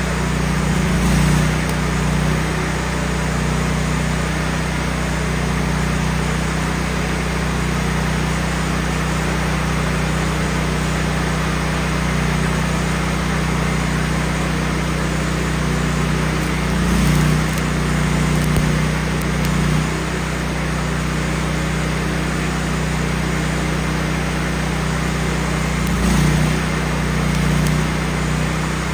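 Miller Bobcat 250 welder-generator's gas engine running steadily, with the continuous hiss and crackle of a stick-welding arc, swelling briefly a few times.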